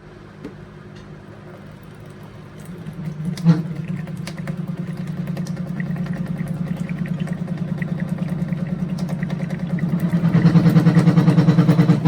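Running water tap and its pipes vibrating, giving a low, rapidly pulsing drone that swells and jumps louder near the end, a whining sound likened to a puppy. A sharp click comes about three and a half seconds in.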